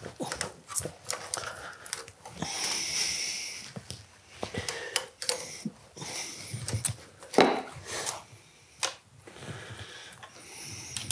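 Metal hand tools clicking and clinking against a stripped V8 engine block, with a longer noisy stretch about two seconds in and one louder knock about seven seconds in.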